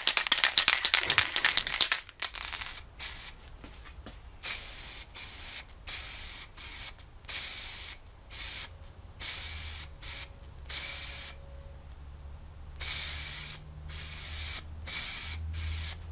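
Aerosol spray-paint can rattling quickly as it is shaken for about two seconds, then spraying in more than a dozen short hissing bursts of varying length.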